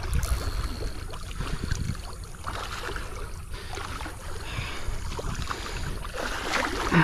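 Flooded river water rushing along the bank, under a steady low rumble on the camera's microphone.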